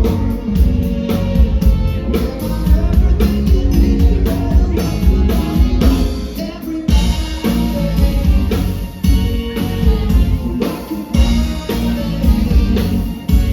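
Background song with singing, drums and guitar and a steady beat.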